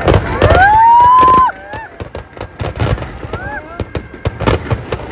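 Firecrackers inside a burning Dussehra effigy popping in rapid, irregular bursts. About half a second in, a loud hoot rises in pitch and holds for about a second before stopping suddenly, with voices from the crowd over the crackling.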